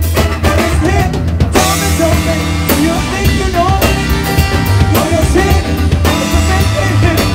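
Live band playing loudly, heard close to the drum kit: drums and cymbals, electric guitar, bass and a singing voice.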